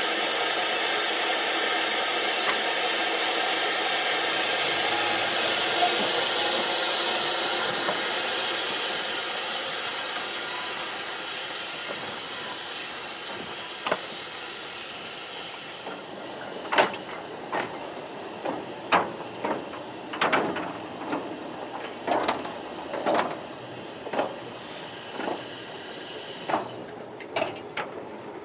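Steady steam hiss from the narrow-gauge steam locomotive Palmerston standing close by, fading away over several seconds. From about halfway through come sharp metallic knocks and clanks, roughly one a second, from the train on the track.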